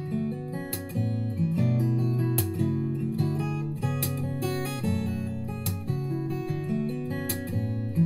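Background music: an acoustic guitar playing chords, with a sharp strum about every second and a half.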